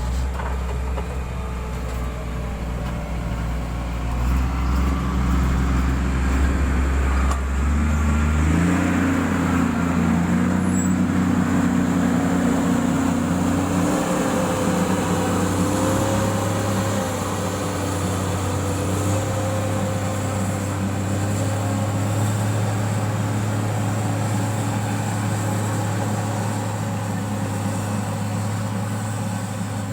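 Motor grader's diesel engine running steadily, then picking up speed about a third of the way in and holding the higher revs.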